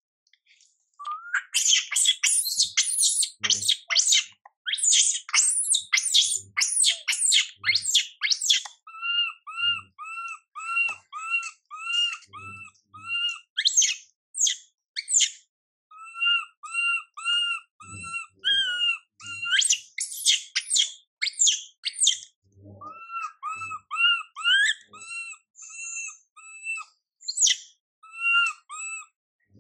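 Baby long-tailed macaque crying in distress: bursts of shrill screams, then long runs of short, rising-and-falling cries at about two a second, with another burst of screams about two-thirds of the way through.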